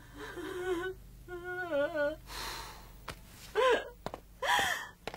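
A woman crying: wavering, wailing cries broken by sharp gasping breaths.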